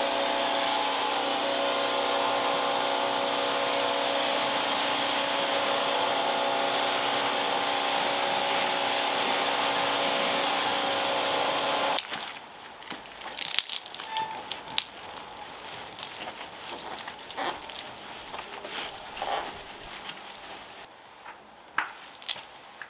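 Kärcher vacuum cleaner running steadily with a motor whine, then switched off abruptly about halfway through. After it stops come light irregular clicks, scrapes and rustling from hands and tools working on the car interior.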